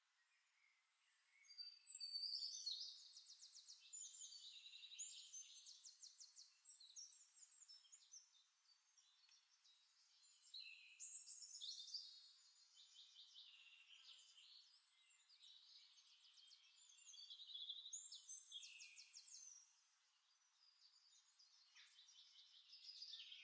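Faint songbird song: varied high chirps and quick trills coming in phrases a few seconds long, several times over.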